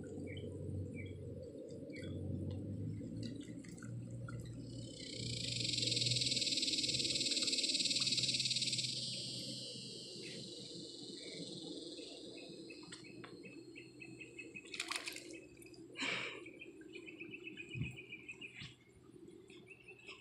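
Shallow water running over a concrete creek bed. A few seconds in, a high hissing buzz swells and fades over about four seconds. Birds chirp in short calls in the second half.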